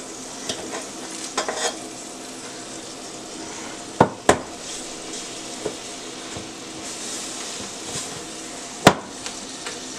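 Hot breaded chicken sizzling in a pulled-out Ninja air fryer basket while a metal fork turns the pieces over. Sharp clinks of the fork against the basket come now and then, the loudest two about four seconds in and one more near the end.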